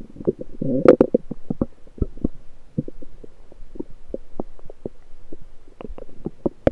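Bowel sounds from the lower intestines, heard through an electronic stethoscope: a short burst of gurgling about a second in, then a string of small irregular pops and clicks.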